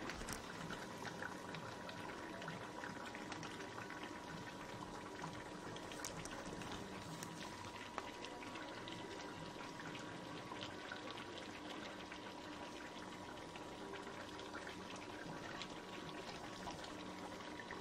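Chicken curry simmering in a pan in the juices the meat has released: a steady sizzle and bubbling with small crackles, over a faint steady tone.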